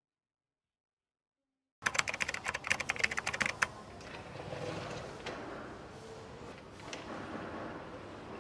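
Spring mechanism of a day-and-night roller shade clicking rapidly as the shade is worked by hand, starting about two seconds in and lasting about two seconds, then a softer rolling rustle of the shade with a couple of single clicks.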